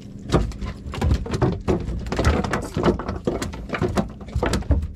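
A rapid, irregular run of knocks and thumps, several a second, each with a dull low thud beneath it.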